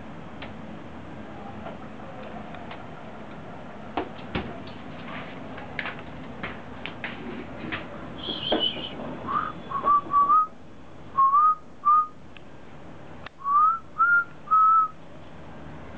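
A person whistling a string of short notes, most rising slightly in pitch, in small groups through the second half. Before that, scattered light clicks of a dachshund's claws on the tiled floor.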